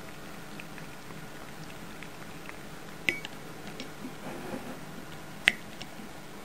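A cat eating at close range: soft, wet mouth clicks and smacks from its tongue and teeth, with two sharper clicks about three and five and a half seconds in.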